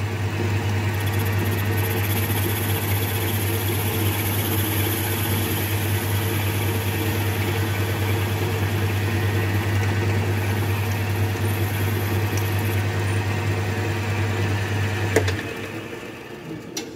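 Metal lathe running steadily with a strong low motor hum while it machines a steel wheel blank. It is switched off with a click about 15 seconds in, and the sound drops away.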